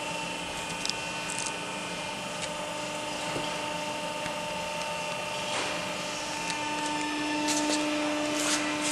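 Barwell ECO5HPlus rubber preforming machine running while producing silicone O-ring preforms: a steady machine hum with a few short clicks and hisses.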